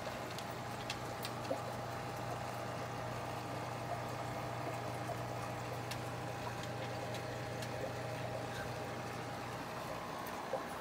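Steady hum of aquarium pumps and filters running, with water trickling and bubbling and a few faint clicks.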